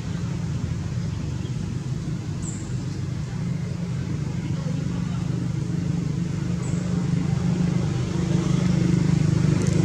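Low, steady engine rumble of a motor vehicle running nearby, growing gradually louder toward the end.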